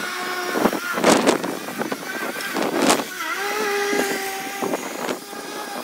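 Cordless electric lawn mower running with a steady whine whose pitch dips and recovers about three seconds in, with a few short, sharp noises over it.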